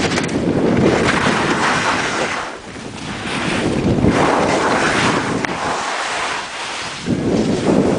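Wind rushing over a microphone skiing downhill at speed: a rough, loud rush that swells and eases, dropping briefly about two and a half seconds in and again around six seconds.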